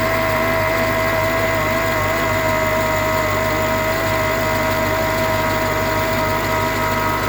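Mercedes-Benz E55 AMG engine idling with a steady, high whirring whine over it, a cold-start noise that the owner says fades after a minute of running.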